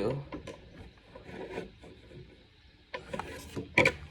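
Handling noise from the old accordion being moved and set aside: scattered light clicks and rubbing, a scraping stretch about three seconds in, then a couple of sharp knocks near the end.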